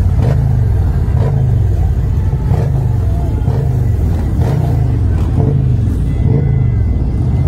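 Motorcycle engine running loud and low at slow riding speed, heard from the rider's seat, its note swelling and easing about once a second.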